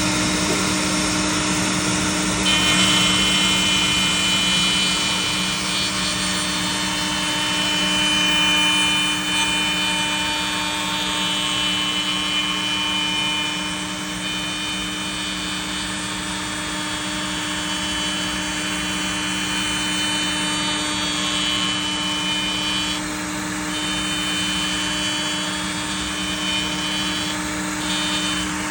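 Router with a dovetail bit running steadily on a pantorouter, taking a cutting pass on a wooden knob. A high whine comes in about two and a half seconds in and fades and returns a few times.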